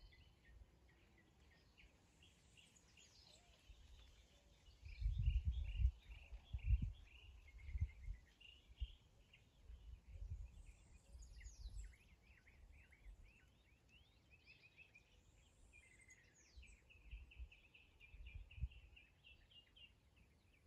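Many birds chirping and trilling in a continuous evening chorus, with low rumbling gusts of wind on the microphone, the loudest of them about five to seven seconds in.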